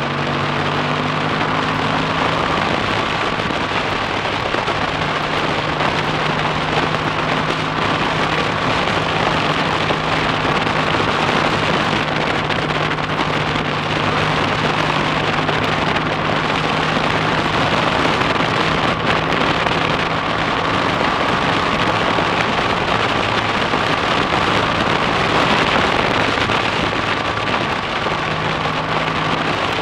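Freshly rebuilt BSA A65 Thunderbolt's 650 cc parallel-twin engine running steadily on the move, under heavy wind rush over the microphone.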